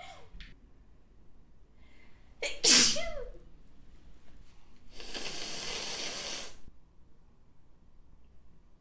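A woman's single loud, wet sneeze about two and a half seconds in: a sharp burst with a short voiced cry, after a faint intake of breath. About two seconds later comes a steady hiss lasting about a second and a half.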